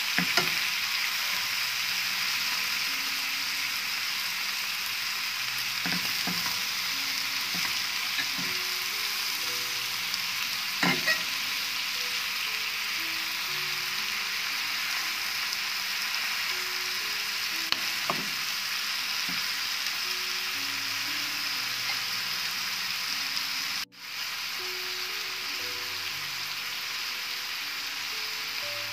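Liver sizzling steadily as it fries in an aluminium pan with onions and tomatoes, with a few sharp clicks of metal tongs against the pan as the pieces are turned. The sizzle breaks off for a moment about three-quarters of the way through.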